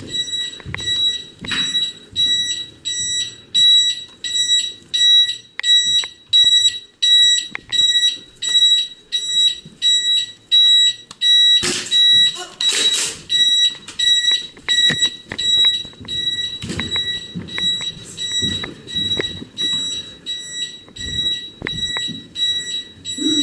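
Airsoft bomb prop's electronic beeper sounding a high, even beep about twice a second, without a break. A short rustling burst comes about halfway through.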